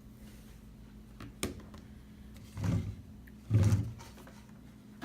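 Handling noises: a sharp click about a second and a half in, then two louder short scuffs about a second apart, over a steady low hum.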